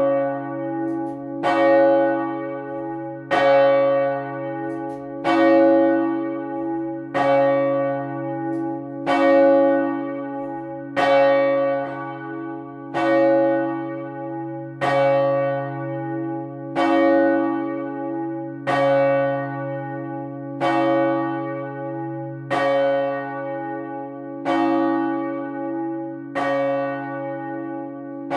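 A single large church bell swinging and rung on its own, its clapper striking about once every two seconds, each stroke ringing on under the next.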